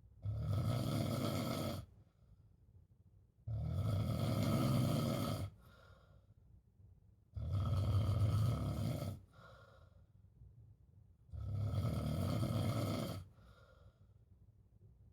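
Snoring: four long snores, each about two seconds, coming every four seconds or so, with faint quieter breaths between them.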